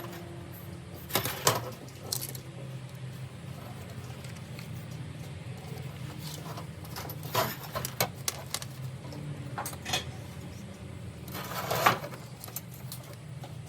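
Scattered metallic clinks and knocks, a few seconds apart, over a steady low hum; the loudest come about a second and a half in and near the end.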